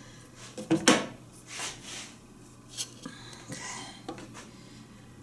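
Metal bar clamp being handled and laid in place to press a freshly glued wooden joint: a few scattered clinks and knocks, the loudest about a second in.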